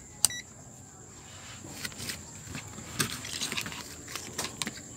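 Digital multimeter (ZOTEK ZT102) giving one short electronic beep as it is set to buzzer mode for a continuity check for shorts, followed by scattered light clicks and taps of handling.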